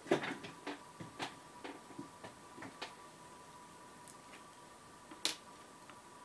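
Light clicks and taps of small craft items being handled on a tabletop: a quick cluster in the first three seconds, then one sharp click about five seconds in.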